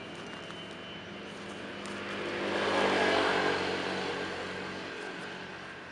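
A motor vehicle passing by off-camera: its engine and road noise swell over about a second, peak, then fade away over the next two seconds.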